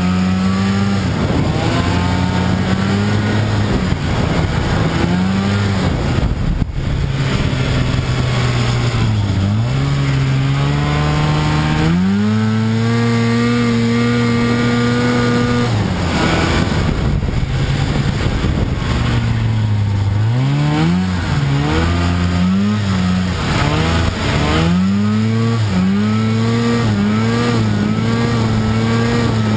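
Snowmobile engine running under changing throttle while riding through snow, its pitch rising and falling: it holds a high steady pitch for a few seconds near the middle, then rises and drops quickly several times later on, over a constant rushing noise.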